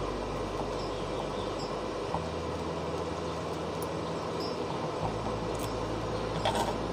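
Steady background hiss with a low electrical hum that switches on and off every few seconds, and a brief faint rustle near the end.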